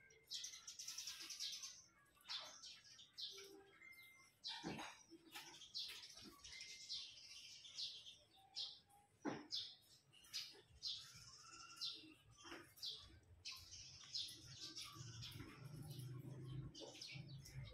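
Small birds chirping repeatedly in short high bursts, with scattered faint clicks and taps. Near the end, quiet handling and rustling as hands pick up a tokay gecko.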